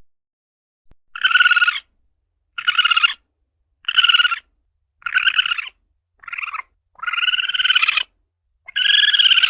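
Asian palm civet (luwak) calling: a string of about seven short, pitched cries, roughly one a second with silence between, the last one longer.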